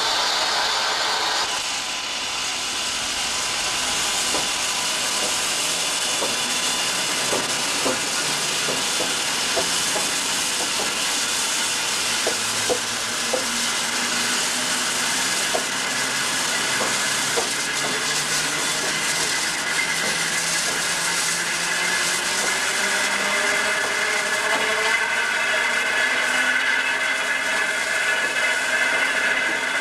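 Western Maryland Scenic Railroad train moving slowly on the track: a steady rushing noise with a run of sharp clicks, and squealing tones that slide in pitch and grow louder over the second half.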